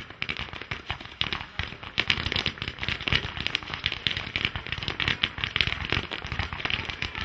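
Aerial firework shells from professional firework cakes bursting in a rapid, unbroken barrage: many sharp bangs a second mixed with crackle.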